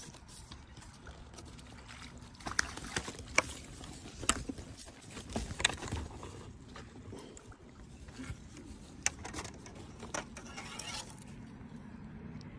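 Water sloshing and splashing, with irregular sharp knocks and short splashes scattered through it.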